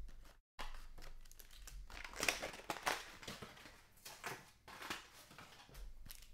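Crinkling and rustling of a foil-wrapped trading-card pack and its cardboard box as they are handled and the pack is slid out, in scattered bursts that are loudest two to three seconds in.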